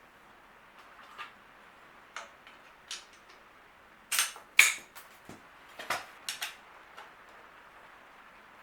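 Bicycle parts and tools being handled during assembly: a scattered series of sharp metal clicks and clinks. The loudest two come about four seconds in, and a few more follow around six seconds.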